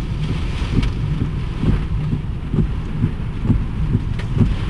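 Tornado wind buffeting the microphone as a heavy, constant low rumble, with frequent short knocks and thumps scattered through it.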